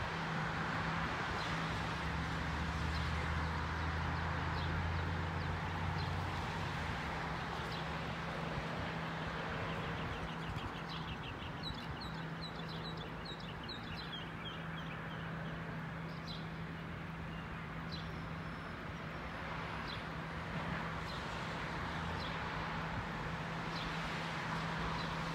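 Small birds chirping, with a quick run of chirps about halfway through, over a steady low hum and background rumble.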